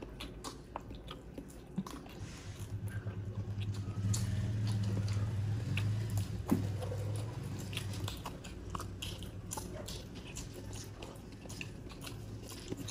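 Close-up mouth sounds of people eating roast chicken and rice: wet chewing and biting with small clicks and occasional crunches. A low hum rises about two seconds in and fades out about eight seconds in.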